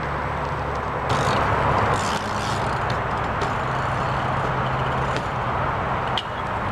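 A low, steady engine hum mixed with outdoor noise, with a few faint ticks.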